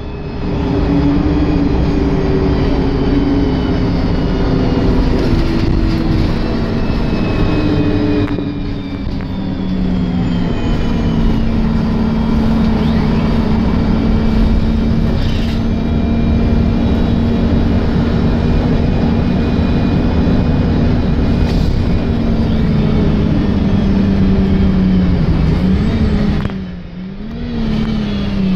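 Wright StreetLite DF single-deck bus being driven hard, heard from inside the passenger saloon: the engine runs steadily under load, with a whine from the driveline that slides slowly down in pitch, then holds. Near the end the sound drops briefly and the pitch wavers, then falls away.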